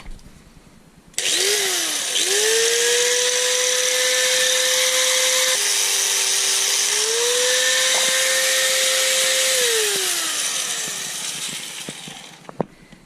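Angle grinder with a cutting disc spinning up about a second in and cutting into a spare ignition key. Its motor pitch dips under load in the middle, then runs back up and winds down near the end, over a loud high hiss of the disc cutting.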